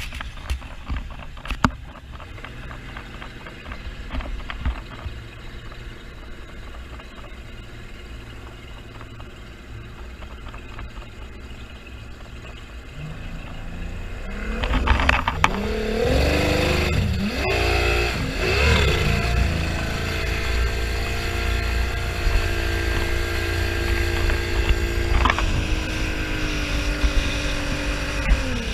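Motorboat engine idling with a low rumble, then revving up about halfway through as the boat gets under way. Its pitch climbs and wavers for a few seconds before settling into steady running.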